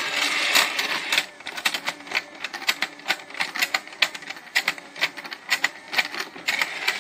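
Plastic penguin escalator toy running: its motor-driven stair steps clack rapidly and unevenly as the toy penguins ride up.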